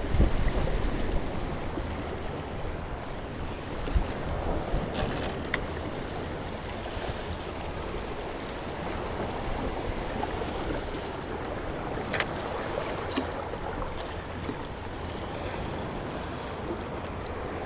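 Small waves washing against rocks, with wind rumbling on the microphone, heaviest in the first second or two. A few brief sharp clicks stand out, the clearest about twelve seconds in.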